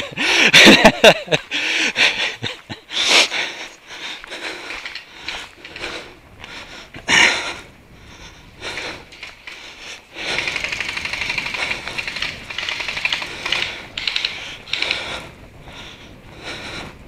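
Footsteps of a person moving quickly over frozen, snow-dusted forest ground, with scuffing and rustling. Past the middle comes a stretch of rapid, even clicking lasting about four seconds.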